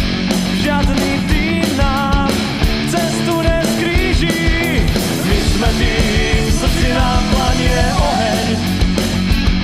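A rock song, a sports club's anthem, with a fast, dense drum beat.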